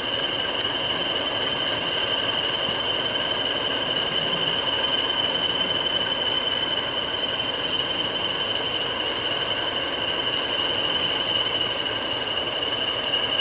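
English Electric Class 40 diesel locomotive standing with its engine running, its turbochargers giving the class's characteristic high, steady whistle over the engine's rumble.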